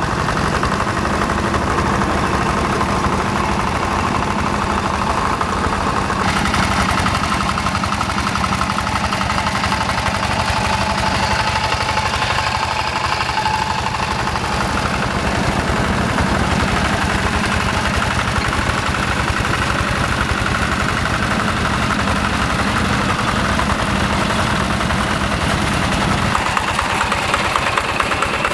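Yanmar TF85 single-cylinder diesel engine on a two-wheel hand tractor, running steadily while the tractor works and levels a flooded rice paddy.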